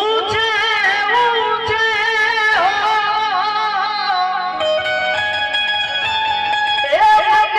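Devotional bhajan music: a man sings long, wavering held notes over a harmonium, with a plucked string instrument also playing. A new phrase starts with a rising glide near the end.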